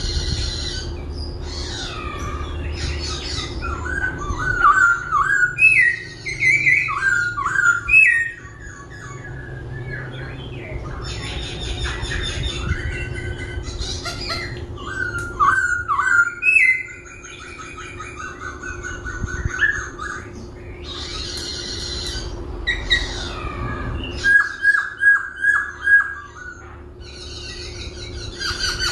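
Laughingthrush singing, switching constantly between phrases: whistled notes and glides, rapid chatter and harsher calls, with a run of five loud, evenly spaced whistles near the end. A faint steady hum runs underneath.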